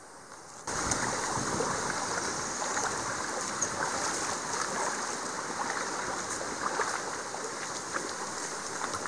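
Shallow creek water running and babbling over gravel, a steady rushing that starts abruptly just under a second in.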